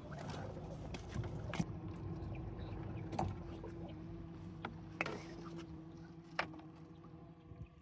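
Small boat's motor running slowly with a steady hum that fades out near the end, with scattered knocks and clicks as a crab trap is hauled aboard.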